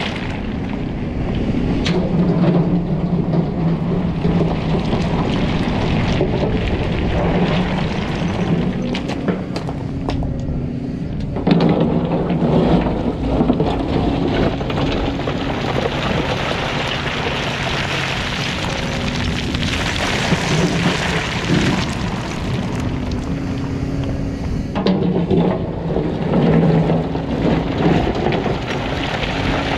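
Volvo EC300EL hybrid excavator's diesel engine running under load, its note shifting as the hydraulics work the boom and bucket, with the bucket scraping and knocking through broken rock.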